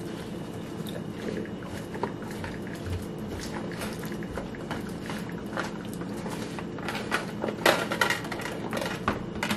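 Light clicks and clatter of a fork picking through salad in a clear plastic takeout container, with a brief burst of louder clatter about eight seconds in, over a steady low background hum.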